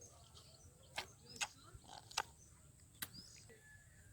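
Four sharp clicks or knocks, irregularly spaced about half a second to a second apart, over a faint outdoor background.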